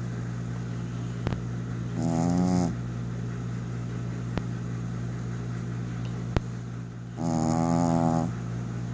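Snoring: two pitched snores, the first a bit under a second long and the second about a second long, roughly five seconds apart, over a steady low hum.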